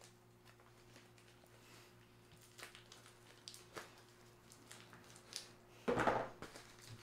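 Faint scattered scratches and rustles of a small knife working at a plastic mailer package, with one louder handling noise about six seconds in. A steady faint hum runs underneath.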